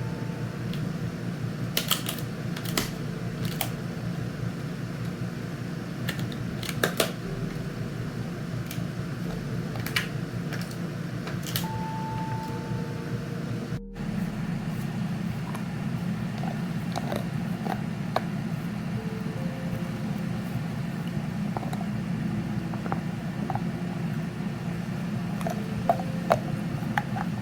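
Steady low hum of a small motor, with scattered light clicks and taps over it.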